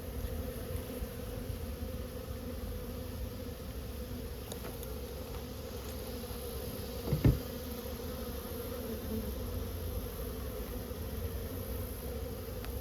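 Swarm of honeybees buzzing steadily around an opened colony, with one short thump about seven seconds in.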